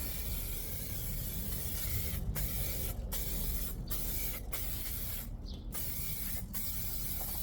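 Aerosol can of brake and caliper cleaner spraying in a run of hissing bursts separated by brief pauses, about seven in all.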